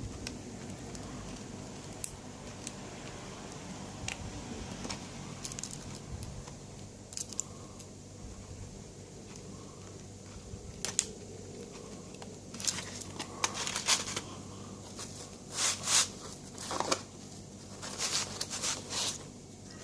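Lock pick and tension wrench scraping and clicking inside a laminated padlock picked through its plastic blister packet, with the packet's plastic crinkling. Scattered small clicks at first, then a run of louder rustling and clicking bursts in the second half.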